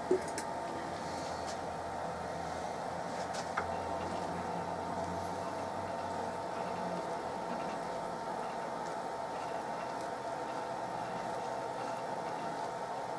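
A steady machine hum with a couple of short, faint clicks, one at the start and one about three and a half seconds in.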